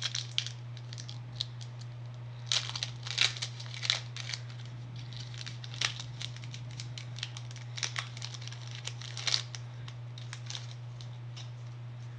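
Foil wrapper of a Pokémon booster pack being torn open and crinkled by hand, in irregular bursts of crackling and rustling, over a steady low hum.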